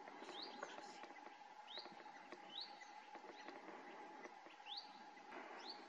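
Faint bird chirps: five or six short upward-sliding calls at irregular intervals of about a second, over quiet background hiss with a faint steady hum underneath.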